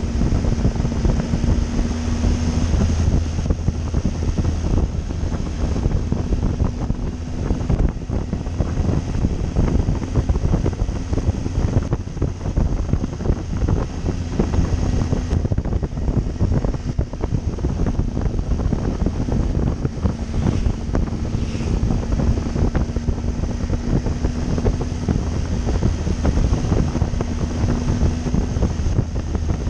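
Wind buffeting the microphone of a Triumph Tiger 800 under way, over the steady drone of its three-cylinder engine.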